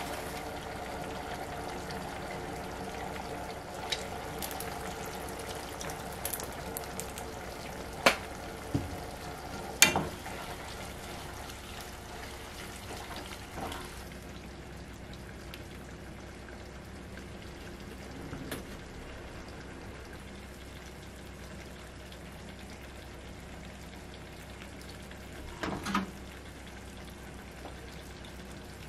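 Pork and konnyaku cooking in a saucepan, with a few sharp knocks of the wooden spoon against the pan. About fourteen seconds in this gives way to a quieter, duller simmer of tofu and sliced leek in broth in a frying pan, with one more knock near the end.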